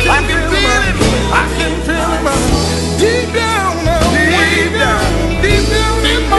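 Gospel song recording: wavering sung runs over steady instrumental backing with a stepping bass line.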